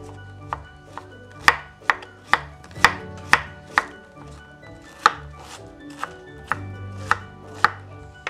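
Chef's knife shredding a head of white cabbage on a wooden cutting board: sharp chops about two a second, with a short pause midway.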